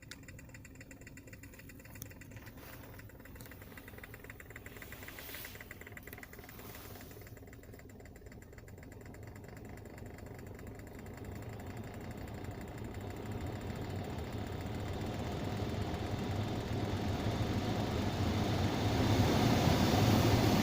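Hyundai Creta cabin heater blower fan running with a knocking from the fan. Its air rush grows steadily louder over the second half. The knock is a fault that appeared at about 10,000 km.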